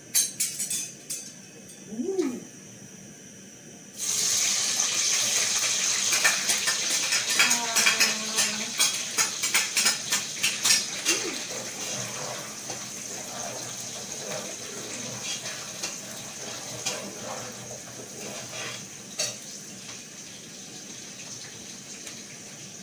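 Onions hitting hot cooking oil: a loud crackling sizzle starts suddenly about four seconds in, then slowly dies down to a quieter sizzle.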